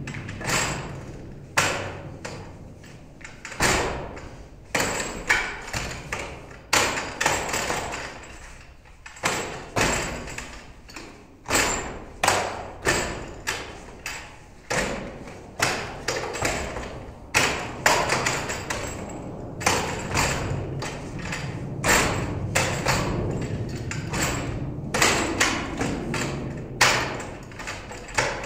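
Wing chun wooden dummy (mook yan jong) struck by forearms, hands and shins as the form is worked: irregular wooden knocks and thuds, often several in quick succession, with short pauses between sequences.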